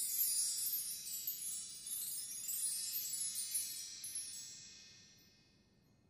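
Shimmering chime sound effect: a cascade of many bright, high bell tones sweeping downward, a second sweep rising about two seconds in, then ringing out and fading away.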